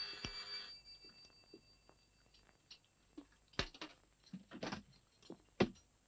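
Doorbell ringing, cutting off within the first second; then a few sharp clinks of spoons and dishes on a metal serving tray, three of them louder in the second half.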